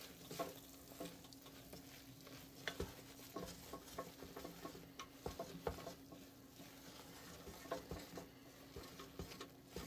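Wooden spoon stirring marshmallows in a stainless steel saucepan: faint scraping with scattered soft taps against the pan, over a faint steady hum.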